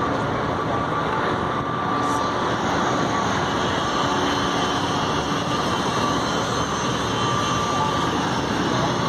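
Steady, loud drone of engine noise that holds an even level throughout.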